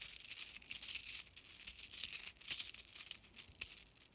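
Glow-in-the-dark beaded infinity loop fidget being worked in the hands, its small beads clicking and rattling against each other in a fast, steady patter.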